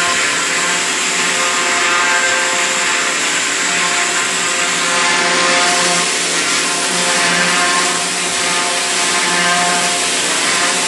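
A motor-driven machine running steadily: a constant hum with a loud hiss over it, without letting up.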